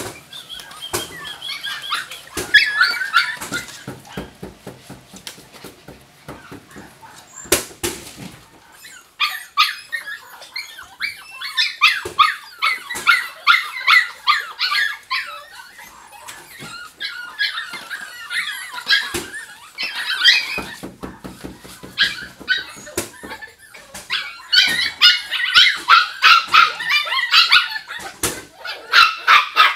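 A litter of Jack Russell Terrier puppies barking and yipping in high-pitched bouts of rapid short calls, busiest in the middle and near the end, with scattered clicks and one sharp knock about seven and a half seconds in.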